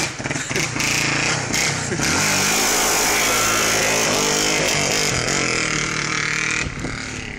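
Quad (ATV) engine revving hard while its tyres spin and scrub on the pavement in doughnuts. The engine note rises and falls, and the tyre hiss holds loud from about two seconds in before easing off near the end.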